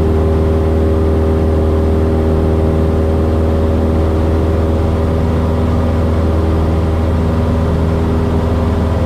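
Cessna 172S's Lycoming IO-360 four-cylinder piston engine and propeller droning steadily in flight, a constant low hum with several steady overtones.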